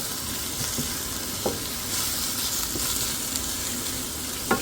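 Sliced garlic and onion sizzling in peanut oil in a pan, a steady frying hiss, while being stirred; the stirring utensil knocks against the pan twice, about a second and a half in and near the end.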